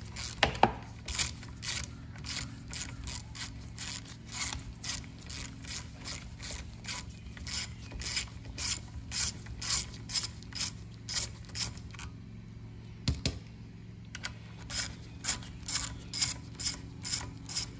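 A ratchet wrench clicking steadily, about three clicks a second, as a bolt on the hedge trimmer's air box and carburetor is turned out. The clicking pauses for a couple of seconds about two-thirds of the way through, with one louder knock, then starts again.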